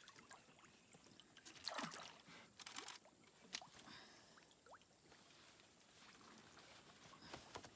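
Faint water sounds: small splashes and trickling, with a few brief louder splashes and light clicks.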